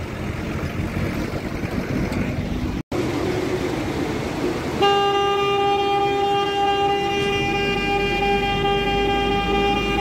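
Vehicle horn sounding one long, unbroken blast from about halfway in, over the running noise of the vehicle. It is honking at a flock of goats blocking the mountain road ahead.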